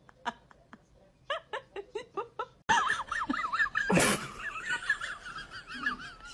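A person laughing in a quick run of short bursts. After a cut, a high wavering sound with a loud, rough burst about four seconds in.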